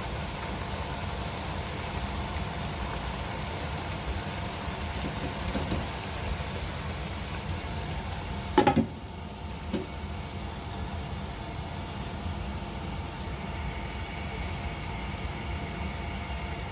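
Duck tongues sizzling in a pan with soy sauce and sugar: a steady hiss over a low hum. About eight and a half seconds in there is a short clatter, after which the hiss is duller.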